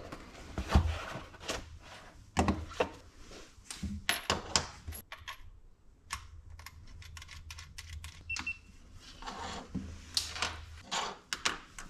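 Handling noise from a handheld battery internal-resistance tester and its leads on a wooden desktop: irregular plastic clicks, taps and a few dull knocks as the unit is unboxed, set down and a probe cable is plugged in. A short single beep comes about eight seconds in.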